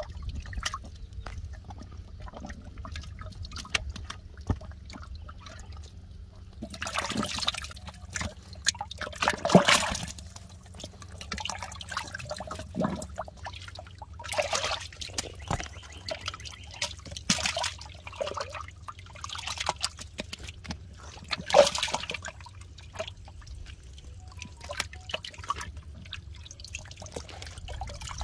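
Water sloshing, splashing and dripping as hands grope for catfish in a flooded mud pit, with several louder splashes spread through and small trickles in between.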